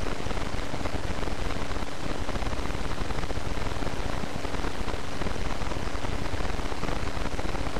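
Steady hiss of broad noise, even and unbroken, with a faint steady hum beneath it.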